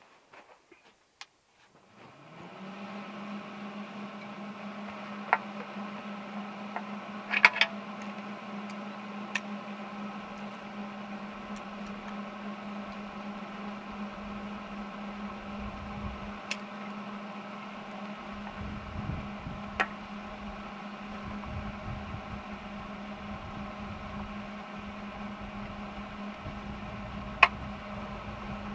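An electric welder switched on about two seconds in, its motor and fan spinning up to a steady, even hum. A few sharp clicks and some low knocks come over it as the welder is set up.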